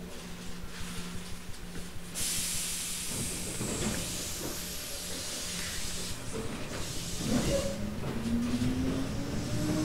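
Tobu 8000-series electric train car heard from aboard: a steady low hum, a burst of air hiss about two seconds in, then from about eight seconds the whine of its TM-63 resistance-controlled traction motors rising in pitch as the train begins to accelerate.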